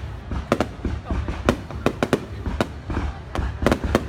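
Fireworks display: an irregular run of sharp bangs and cracks, two or three a second, over a steady low rumble.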